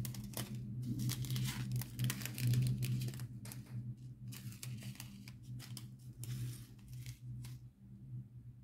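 Small plastic packets of diamond painting drills crinkling and rustling as they are handled and opened, in a quick run of short crackles that dies away near the end. A steady low hum runs underneath.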